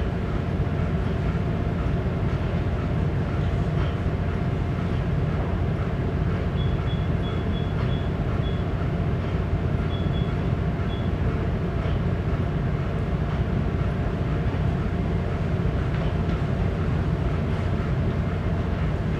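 Steady low drone of a cargo ship's engine and machinery while under way. A run of short, high electronic beeps sounds about a third of the way in, and a few more a little later.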